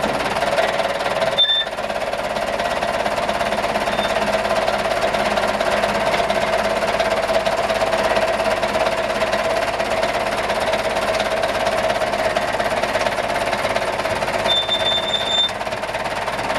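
Hydraulic system of a Super Z250 car-carrier truck running steadily as its loading deck tilts up and back, the engine-driven pump giving a constant whine. A short high beep sounds about a second and a half in, and a longer one near the end.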